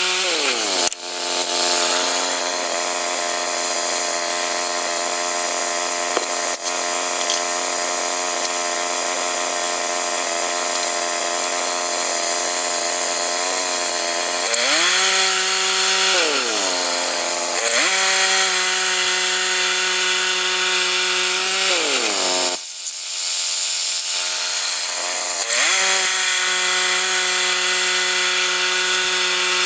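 Two-stroke chainsaw running at high revs as it cuts pine, the engine note held steady. Around the middle the pitch dips and climbs back, and later it drops off to a lower pitch for a few seconds before revving back up.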